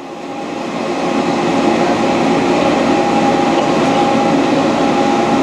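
Large Dainichi Model H lathe running under power feed while taking a light cut: a steady machine hum with a few held tones. The gears run without grinding and the cut barely loads the spindle, signs of a machine in good condition.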